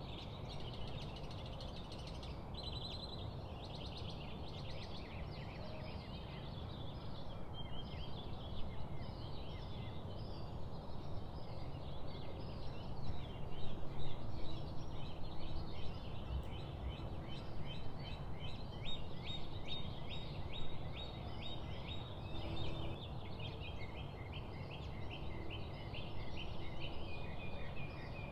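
Birdsong: rapid series of high chirps and trills, repeating almost without pause, over a steady low background noise.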